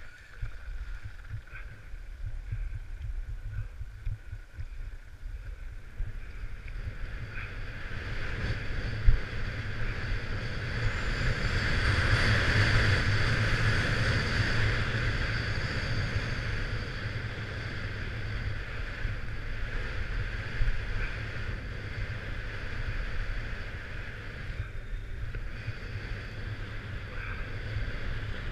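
Wind buffeting the action camera's microphone over the hiss and scrape of edges sliding on packed snow during a downhill run. It swells loudest about halfway through, with one sharp knock a little before that.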